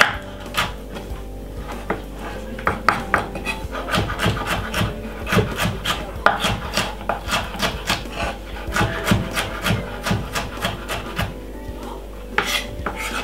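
Chef's knife chopping yellow bell pepper on a bamboo cutting board: quick, uneven taps of the blade on the wood, with a louder stroke near the end.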